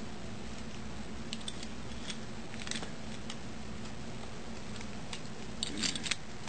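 A few light, sharp clicks and taps of small hard plastic parts being handled, then a quick cluster of clicks near the end, over a steady low room hum.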